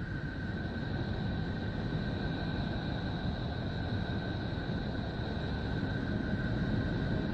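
Neptune's radio emissions, picked up by Voyager 2 and converted into sound: a steady, dense low rumble and hiss with two thin, steady high tones running over it.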